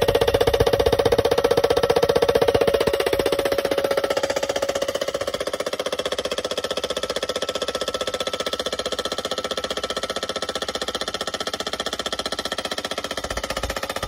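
A RAMBO hydraulic post driver hammering a galvanized steel post into the ground with a fast, steady run of blows. The post rings with a steady tone that fades about four seconds in.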